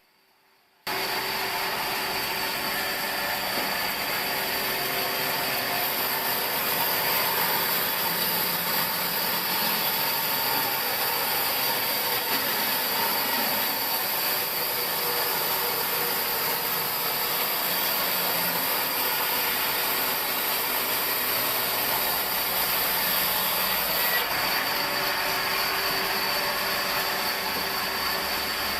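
Sawmill saw machinery running steadily, a constant mechanical noise with steady high-pitched tones, starting about a second in after a moment of silence.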